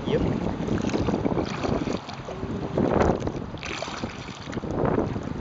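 Water sloshing and splashing around a kayak on a river, with wind buffeting the microphone. The splashing swells about three seconds in and again near the end.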